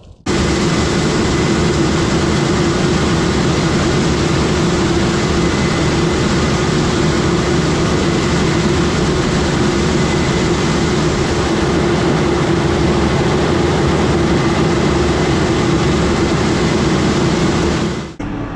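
Case IH combine harvester running steadily under load: a constant loud machine noise with a steady hum and a faint high whine, cutting off suddenly near the end.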